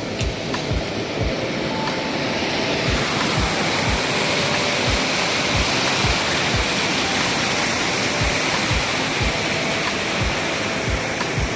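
Steady rush of swollen mountain floodwater pouring down a channel, swelling in about three seconds in, under background music with a steady beat.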